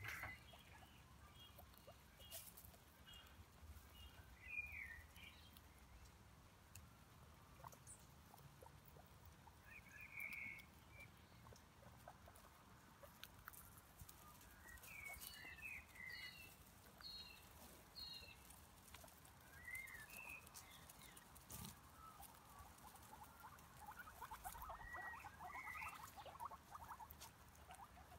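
Guinea pigs foraging in dry leaves and bark mulch, heard quietly: soft rustling and nibbling, with short high squeaks every few seconds and a longer spell of crackling rustle near the end.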